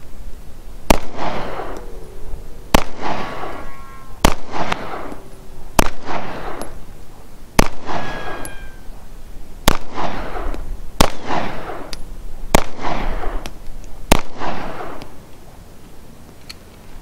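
Nine pistol shots from a Sarsilmaz SAR K12 semi-automatic handgun, fired at a steady pace of about one every one and a half seconds. Each shot trails off in an echo.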